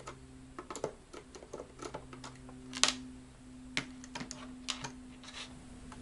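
Phillips screwdriver backing small screws out of the plastic back case of a Spektrum DX6i transmitter: scattered light clicks and ticks, with one sharper click about three seconds in.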